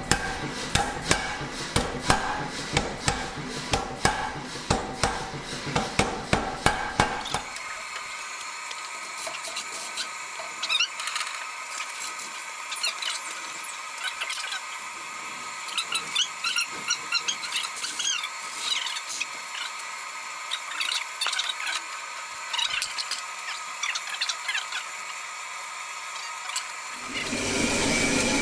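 Hand hammer striking hot steel on an anvil, about two to three blows a second, during forging. It gives way abruptly to a quieter steady hiss with scattered crackles and ticks. Near the end a loud steady rushing noise starts.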